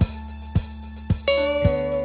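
Background music: guitar over a steady beat of about two strikes a second, with a new held note coming in partway through.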